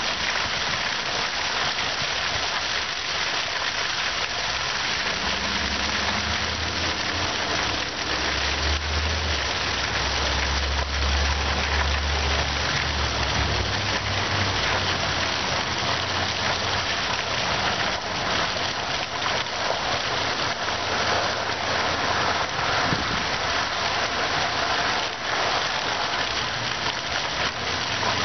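Fountain water splashing and falling steadily. A low rumble swells about five seconds in and fades out by about fourteen seconds.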